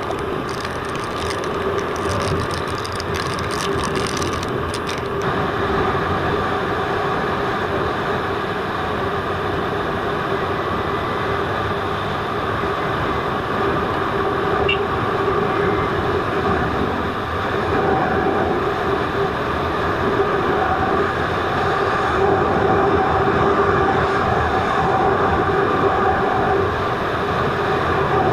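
Motorcycle on the move heard through a helmet-mounted action camera: steady wind rush over the microphone with a constant engine hum at cruising speed. Some crackling in the first five seconds.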